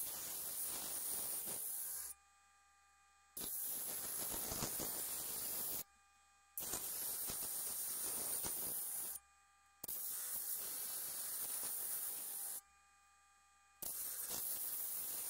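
Steel cleaver edge being ground against a spinning P80-grit sandpaper disc on a horizontal disc grinder to grind out chips in the edge. A harsh hiss comes in five passes of about two and a half seconds each. Between them are short pauses where only a faint steady hum remains.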